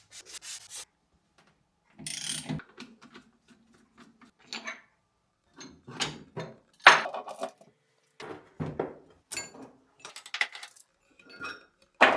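Hand work on the milling machine's electric motor while its dry bearings are changed: irregular scraping and rubbing of metal parts with scattered clicks and knocks, the loudest a sharp knock about seven seconds in.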